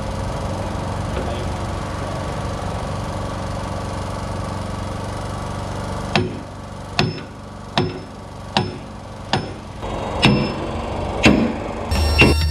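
Sledgehammer driving a steel pin into an excavator thumb's mounting bracket: about eight sharp, ringing metal-on-metal strikes, a little under a second apart, from about halfway through. Before that, a steady droning noise.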